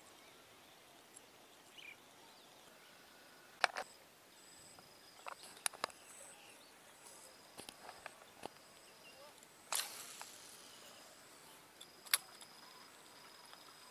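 Several sharp clicks and knocks a few seconds apart, from hands handling the camera, over a faint outdoor background with thin high steady tones.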